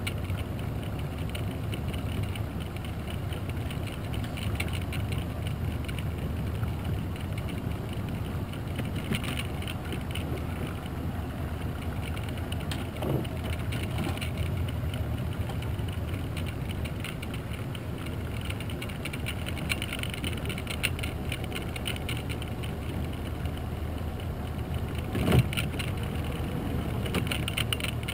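Small outboard motor running steadily at low speed with a low hum as the boat idles along. A smaller knock comes about halfway through and a single sharp thump near the end.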